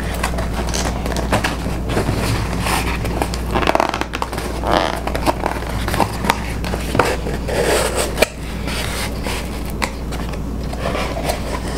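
A small cardboard box being handled and opened: the tuck flap scraping and pulling free, cardboard rubbing and tapping on the table, and crinkling of the plastic wrap around the potted plant inside. The sounds come as an irregular run of scrapes, rustles and clicks over a steady low hum.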